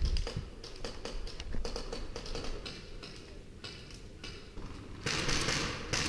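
Footsteps crunching over rubble and broken brick, a run of irregular clicks and taps, with a louder rough crunching rustle starting about five seconds in.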